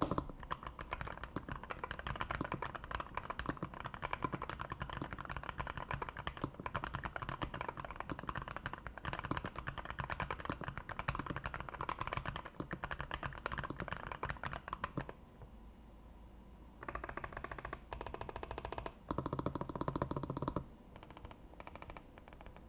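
Typing on a Nuphy Field75 mechanical keyboard fitted with Nuphy Polaris switches (long-pole stems, factory lubed): a fast, steady run of keystrokes, crisp with a slight clack. It stops about 15 seconds in, then comes back as two short, fast bursts of key presses before falling away.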